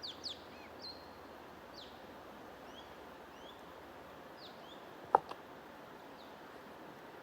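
Songbirds chirping in short, quick notes over a steady rushing background noise, with the chirps thickest in the first two seconds. About five seconds in a single sharp click stands out as the loudest sound, followed by a fainter one.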